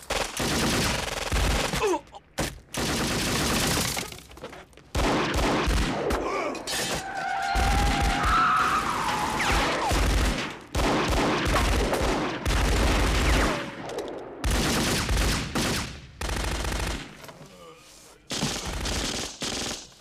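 Long bursts of automatic gunfire in a film shootout, broken by brief pauses, with bullets striking a car.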